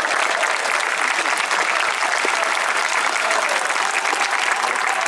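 Stadium crowd applauding, a steady dense clapping.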